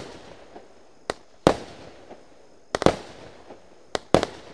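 Stienen 'Pyro Parade' consumer firework cake firing shots that burst into stars. Several sharp bangs come at irregular intervals, some in quick pairs, each trailing off in a short echo.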